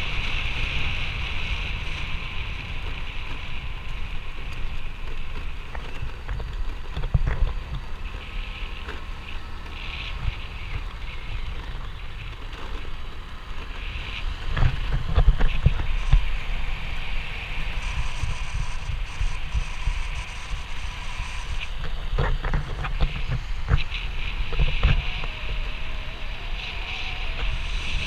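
Wind rushing over the microphone of a camera on a moving scooter, with the scooter's engine and tyre noise underneath. The rumble swells and fades in gusts, strongest around the middle.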